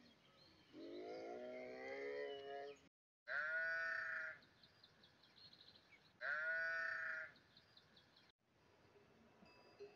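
A sheep bleating twice, each bleat loud and about a second long, a couple of seconds apart. Before them comes a lower, wavering animal cry lasting about two seconds.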